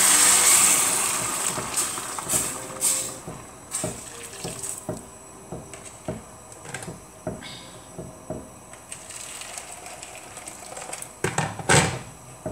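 Water poured from a plastic jug into a pan of frying vegetables, splashing loudly at first and fading over about two seconds. Then a slotted spatula stirring the pan, with scattered scrapes and knocks against the metal and a louder cluster of knocks near the end.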